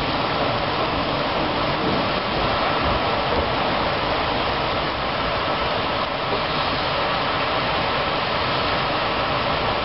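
Heavy rain falling steadily on paving and a parked car: a dense, even hiss.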